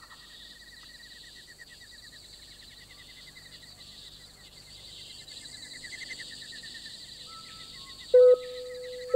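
Nature ambience: rapid, evenly repeated chirping over a high, steady hiss. Near the end, loud, short electronic beeps start about a second apart, a countdown beep for each number.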